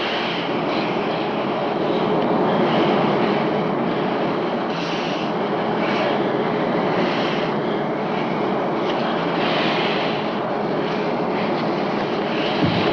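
Loud, steady rushing noise of air and engines inside a jet airliner's cabin after a bomb blast has holed the fuselage: the sound of rapid decompression.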